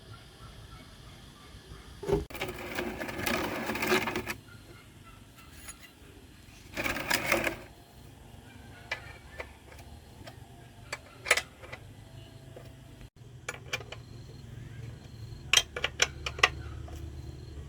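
Two bursts of rapid mechanical clicking, the first about two seconds long and the second shorter, followed by scattered sharp clicks and knocks.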